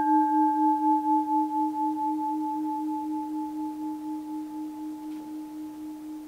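A bell rings on after a single strike, its tone slowly dying away with a steady wavering beat.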